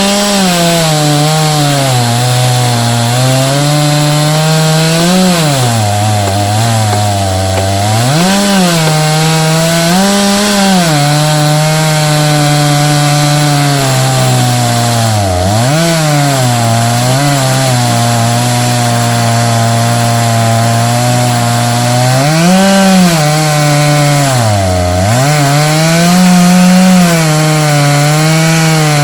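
Chainsaw on an Alaskan chainsaw mill running at full throttle, ripping lengthwise through a log to cut a plank. Its engine note sags and recovers several times as it loads up in the cut.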